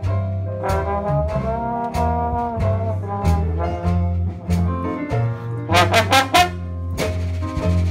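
Traditional New Orleans jazz band playing an instrumental passage, with trombone and cornet leading over a walking string bass and a steady beat from banjo and drums. A quick run of loud strokes comes about six seconds in.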